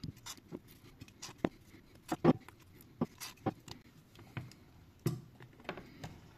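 Irregular light clicks and taps as a Poco smartphone with a glass back and a thin blade are handled on a silicone repair mat: the blade is pulled out and put down, and the phone is picked up and turned over.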